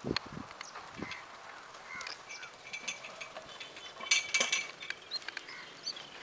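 Birds chirping, with a louder, harsher bird call about four seconds in and a few low knocks near the start.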